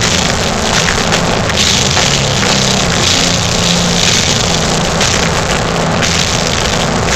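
Live heavy metal band playing: distorted guitars, bass and drum kit in a dense, unbroken wall of sound, overloaded and harsh on the recording.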